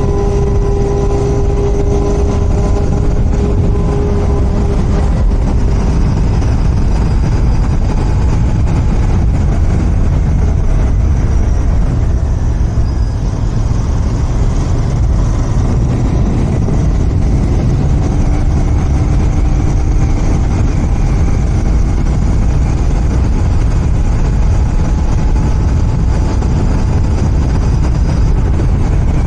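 Royal Enfield Continental GT 650's 648 cc parallel-twin engine through its stock exhaust, running at a steady cruise under way, mixed with a steady low rush of wind and road noise. The engine's pitch drifts only slightly.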